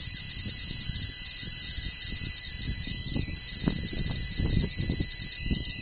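Steady high-pitched electrical hiss with a thin continuous whine from a running spark-gap high-voltage coil rig and its inverter. Under it are an uneven low rumble and a few soft knocks.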